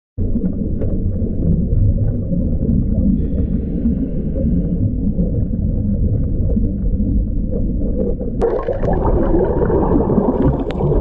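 Muffled underwater noise picked up by a camera in its waterproof housing: a steady low rumble of moving water with scattered faint clicks. About eight seconds in it turns louder and rougher.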